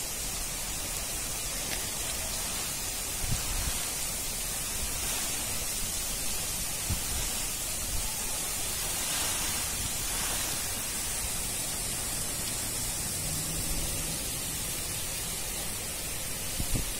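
Heavy rain pouring down steadily onto wet paving and buildings, an even hiss, with a few soft low bumps now and then.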